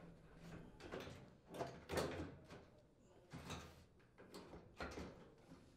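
Handling noise from a clothes dryer's front bulkhead being hooked onto the cabinet frame over the drum: a handful of faint knocks and scrapes, the loudest about two seconds in.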